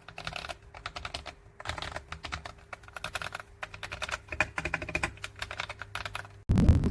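Typing on a mechanical keyboard fitted with KTT Kang White V3 linear switches: fast, uneven keystrokes clacking. Near the end comes a short, louder, deeper burst of sound.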